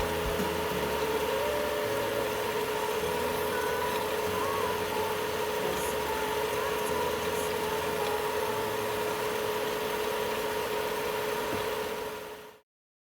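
A steady mechanical hum with a constant tone over a hiss, fading out near the end.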